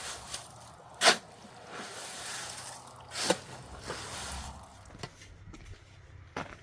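Two sharp knocks about two seconds apart, with softer scraping and rustling noise between them and a few faint ticks near the end.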